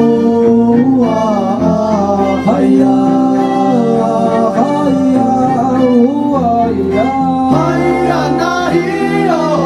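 Live folk song: a voice sings a gliding melodic line over sustained double bass, cello and violin.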